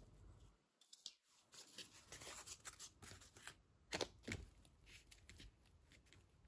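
Faint handling noises from a piece of packaging cardboard being laid on a canvas and pressed into wet filler: soft rustles and scattered light taps, the loudest pair about four seconds in as the card goes down.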